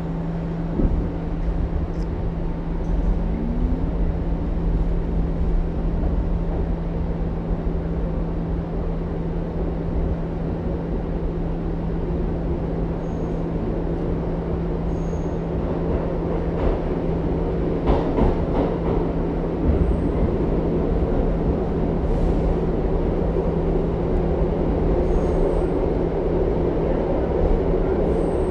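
Inside an R62A subway car in motion: a steady rumble of wheels on track under a constant low hum. A short cluster of clacks comes about eighteen seconds in, and the running noise grows a little louder near the end.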